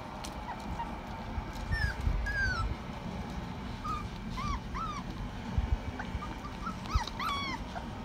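Month-old Rottweiler puppies whimpering while they nurse: a string of short, high, rising-and-falling squeaky cries, the loudest pair near the end, over soft low bumps from the litter jostling.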